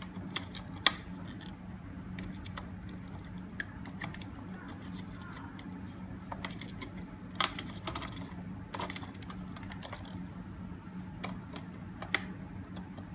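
Batteries being fitted into the plastic battery compartment of an electronic door lock: scattered sharp clicks and small knocks of hard parts meeting, over a steady low hum.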